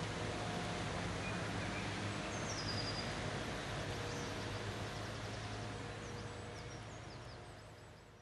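City background noise: a steady wash with a low hum, with faint, high, thin bird chirps scattered through and one short falling chirp about two and a half seconds in. It fades out near the end.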